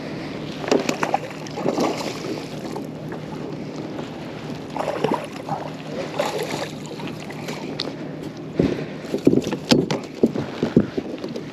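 Scattered knocks, rattles and handling noises on a small fishing boat over a steady low hum, as a small snapper is landed and handled.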